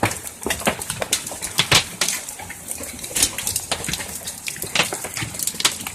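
Heavy hailstorm: large hailstones pelting down, a dense irregular patter of sharp hits over a steady hiss.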